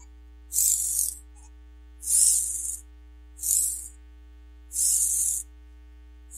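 A series of short hissy swishes, high in pitch, one about every second and a half and each under a second long, over a steady low hum.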